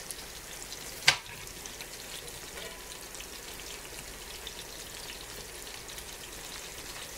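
Cornmeal-battered catfish nuggets frying in hot soybean-and-peanut oil in a cast iron skillet: a steady crackling sizzle as a fork turns the pieces. There is one sharp tap about a second in.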